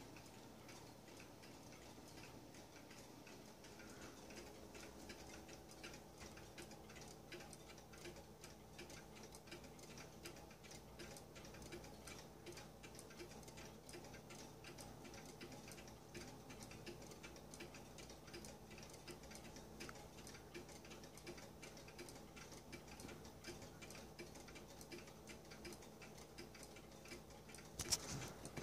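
Mechanical weight-driven cuckoo clock ticking, a faint, steady, even tick. Near the end there is a single louder knock.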